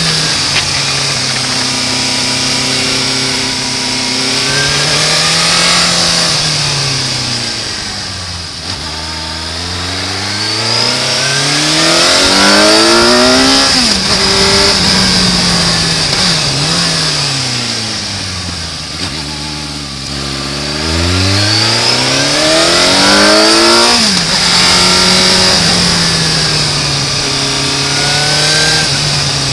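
Suzuki GSR750's inline-four motorcycle engine heard from the bike while riding: the revs wind down slowly twice, then climb steeply under acceleration, each climb cut by a quick drop at a gear change, and near the end the engine holds a fairly steady pitch.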